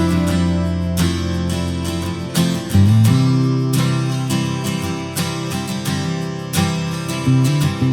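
Background music led by strummed acoustic guitar over sustained bass notes.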